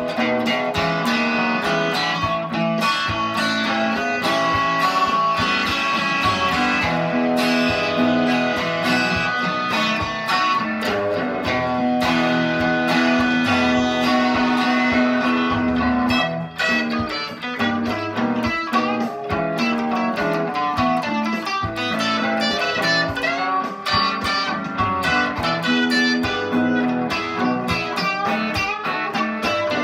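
Electric guitar, a Telecaster-style solid body, playing a blues lick: quick picked notes with some held notes left ringing for a few seconds.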